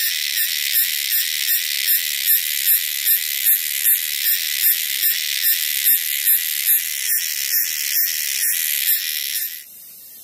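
Loud, high-pitched insect call, a rasping buzz that pulses about two and a half times a second and cuts off suddenly near the end.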